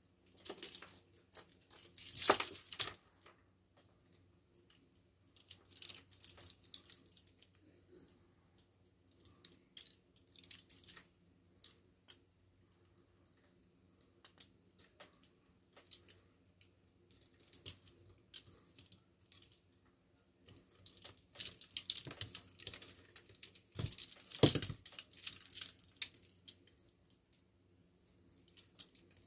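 Steel handcuffs and their connecting chains clinking and rattling in short bursts as the cuffs on the wearer's wrists are worked at to get free of them, with quiet gaps between. The loudest clatters come about two seconds in and again near the end.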